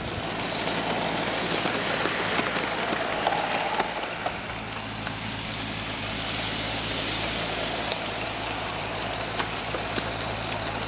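Live-steam gauge G model of a Saxon VII K narrow-gauge tank locomotive running: a steady hiss of steam with many small ticks from the wheels on the track, over a low steady hum.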